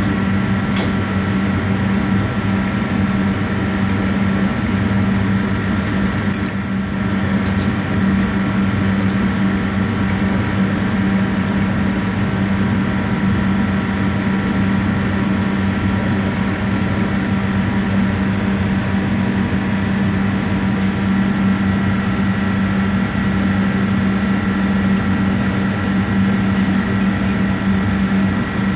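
Steady, loud machine hum and drone from kitchen equipment, with a few faint ticks.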